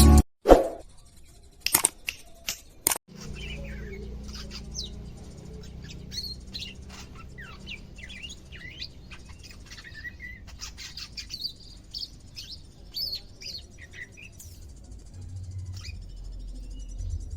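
Cucak ijo (green leafbird) giving scattered short chirps and quick sweeping calls over a low steady hum; a newly kept bird just starting to become vocal. A few sharp clicks come in the first few seconds.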